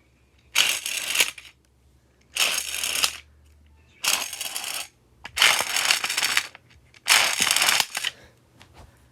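Beyblade Burst Sparking string launcher pulled five times, each pull a rattling whir of about a second as the launcher's gear spins and throws sparks.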